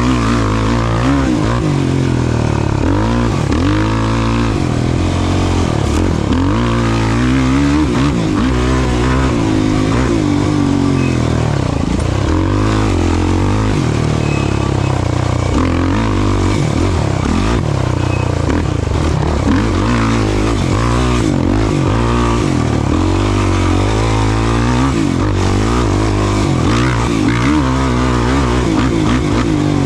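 Off-road racing vehicle's engine running hard, its pitch rising and falling every second or two as the throttle is opened and eased.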